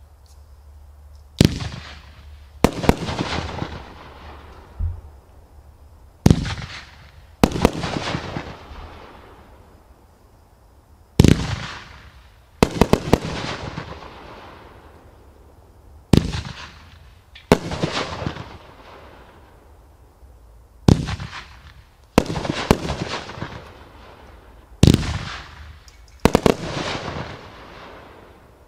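Brothers GM401 Star Chamber, a 500-gram 16-shot fireworks cake, firing its brocade shots. Loud sharp reports come in close pairs, about a second and a half apart, every four to five seconds. Each report dies away over a second or two.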